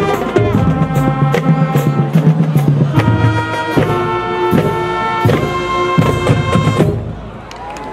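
Marching band playing: brass holding loud chords over sharp drum strikes, breaking off about seven seconds in.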